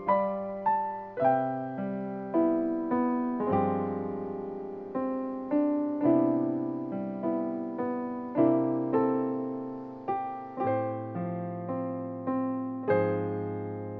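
Background solo piano music: a gentle melody of struck notes that each ring and fade, over sustained bass notes.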